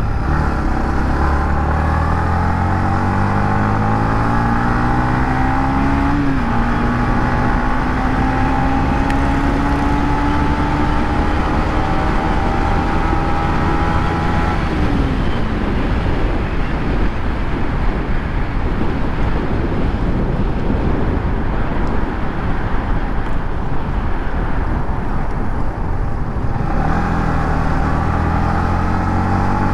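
Yamaha MT-15's 155 cc single-cylinder engine through its stock exhaust, pulling through the gears with the revs climbing, a brief dip about six seconds in, then climbing slowly again. About halfway through the throttle closes and the engine note falls away under wind rush. Near the end the engine note comes back steady.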